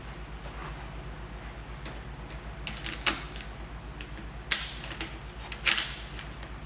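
Metal clicks and clinks of a saddle's rails and clamp pieces being fitted into a KS dropper seatpost's single-bolt saddle clamp: several sharp clicks about a second apart, over a steady low hum.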